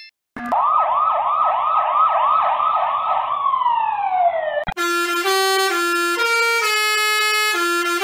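Police car siren in a rapid yelp of quick repeated up-and-down sweeps, then winding down in one falling glide. About halfway through, a multi-tone musical bus horn starts, playing a tune of short, steady notes that step up and down in pitch.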